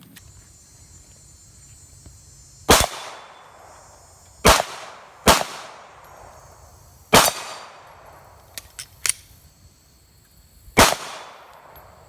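Glock 23 pistol fitted with a 9mm conversion barrel firing slow, aimed single shots: five sharp reports at uneven intervals of one to three and a half seconds, each followed by a ringing echo, with a sixth shot right at the end. Around the middle come three much fainter, quick sharp clicks.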